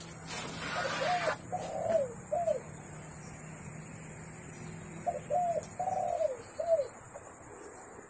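Spotted dove cooing: the same four-note phrase of low, arched notes, given twice about five seconds apart. A short rustle sounds near the start.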